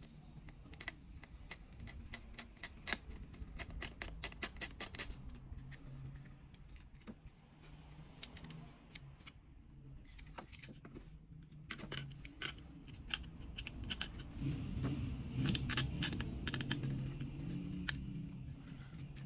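Small sharp clicks and taps of tools and parts being handled while a smartphone is worked on, irregular and coming in clusters, over a low hum that grows louder in the last few seconds.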